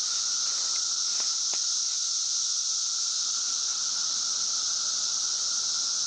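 Chorus of 17-year periodical cicadas: a steady, shrill drone from many insects at once, with a fainter steady lower tone beneath it.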